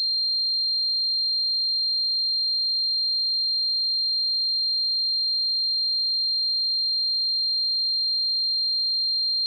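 Single steady, high-pitched pure tone held without any change: a synthesized simulation of tinnitus ringing in the ears.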